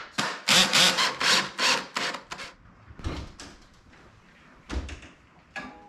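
Cut lengths of 2x4 lumber clattering as they are handled and stacked on a wooden workbench, a quick run of wooden knocks over the first two seconds or so. After a quieter pause, a door shuts with a single thump near the end.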